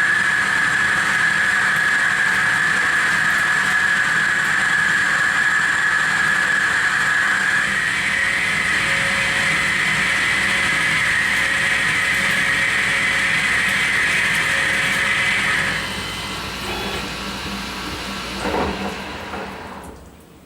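Tormach Slant-Pro CNC lathe boring 1045 cold-rolled steel with a 3/4-inch boring bar, a steady high-pitched whine over the cutting noise. The cut stops about 16 s in, and the machine runs quieter, with a brief sound near the end, before winding down.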